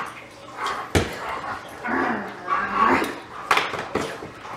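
A Doberman making short vocal sounds during tug play with a toy, with a couple of sharp knocks, one about a second in and another near the end.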